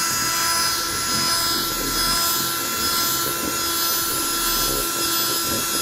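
Milwaukee M18 cordless drill running at a steady speed, drilling a hole through a plastic body panel with a steady whine.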